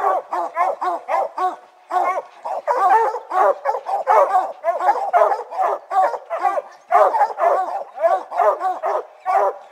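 Several hounds bark at a tree in a steady, rapid chorus of overlapping barks, with brief lulls about two seconds in and near seven seconds. This is the sign of hounds that have treed a bear.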